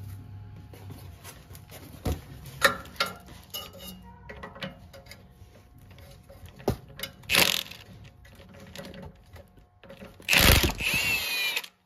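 Ratchet on a long extension working the bolts of an exhaust bracket: scattered metal clicks and knocks, then a louder second or so of clicking and scraping about ten seconds in.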